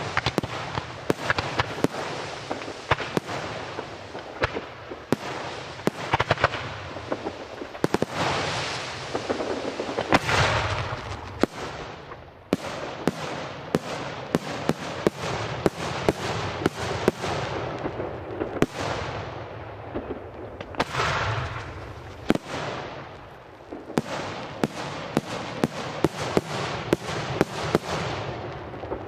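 Aerial fireworks display: a fast, unbroken run of sharp shell launches and bursts, about one or two a second. Longer, louder rolling swells come about a third of the way in and again about two-thirds through.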